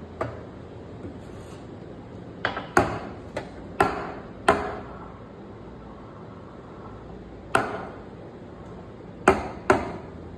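Metal milk pitcher of steamed milk knocked down hard on the counter, sharp knocks that each ring briefly: one at the start, a cluster of five a few seconds in, then three more near the end. This is the usual tapping that settles the milk foam before a latte-art pour. A low steady hum runs underneath.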